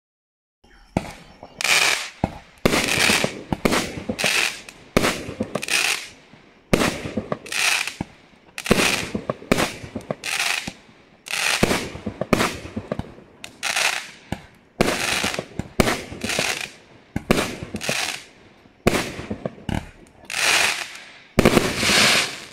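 A 16-shot 200-gram consumer fireworks cake (Fisherman FP6664 Night Boom) firing its shots and bursts: a rapid string of sharp bangs, about one a second, each trailing off briefly, starting about a second in.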